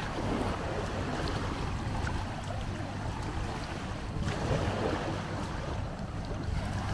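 Waves washing on a sandy beach shore, with wind on the microphone. Surges come about a second in and again about four seconds in, over a low steady hum.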